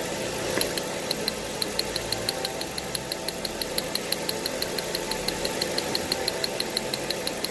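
A Mercedes CLS500's V8 engine running, with a regular, rapid ticking of spark snapping from the rear ignition coil under test. The spark is steady and constant, a sign that this coil is firing properly.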